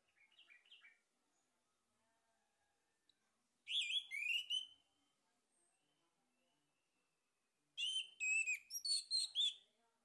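Male orange-headed thrush singing: a soft short phrase at the start, then two loud bursts of quick, gliding whistled notes, the first about a second long and the second about two seconds long.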